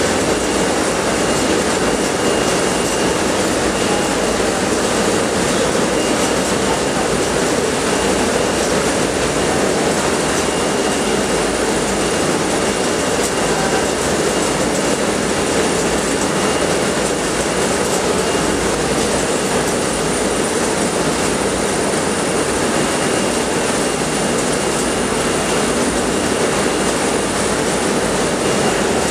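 Steady, loud din of a running poultry dressing line: the overhead shackle conveyor and plant machinery running, with water splashing in the trough and a thin steady high whine over the noise.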